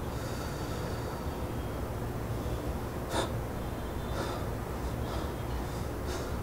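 A man breathing hard and gasping, with several short, sharp breaths in the second half, over a steady low rumble.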